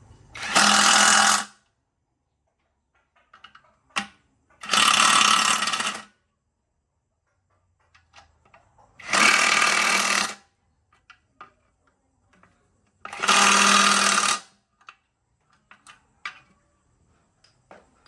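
A power tool run in four bursts of about a second each, a few seconds apart, with faint clicks and knocks between.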